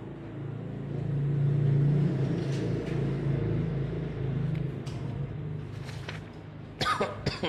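A low rumble swells about a second in and slowly fades, with light clicks. Near the end come several sharp rustles and knocks as a book is handled and its pages flipped close to a microphone.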